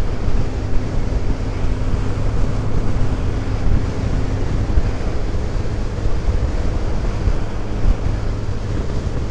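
Wind rushing over the microphone of a moving motorcycle, with the engine's steady drone underneath.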